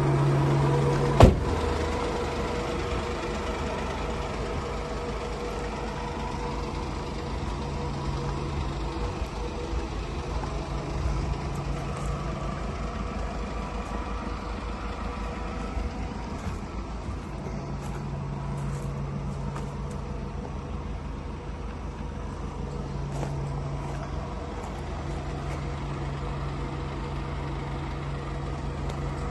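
Mercedes refrigerated van idling steadily, with a low hum that fades in and out several times. One sharp knock sounds about a second in.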